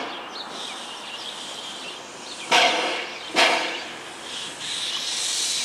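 Metre-gauge steam tank locomotive standing at the platform: two sharp puffs of steam about a second apart midway, then a steady hiss of escaping steam over the last second.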